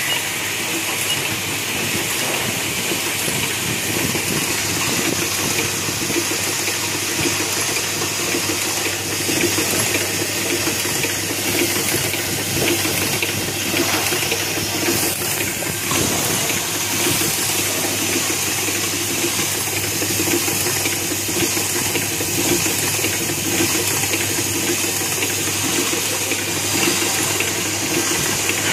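Automatic magnetic-core clip assembling machine running: its vibratory bowl feeders keep up a steady low hum and a dense, even rattling hiss of small steel parts moving in the bowls, along with the machine's pneumatic stations.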